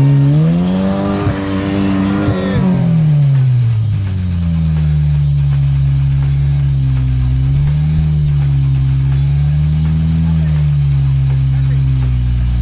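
Off-road race truck engine revving up hard about a second in, holding high for a couple of seconds, then dropping back to steady running with slow small rises and falls as the truck works in powdery dirt. Music plays underneath.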